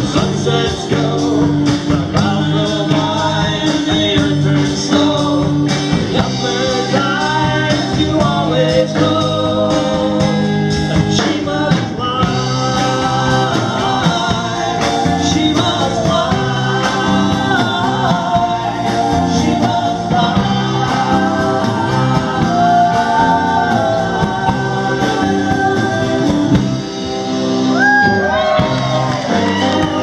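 Live band playing a rock song: electric guitars and violin, with singing.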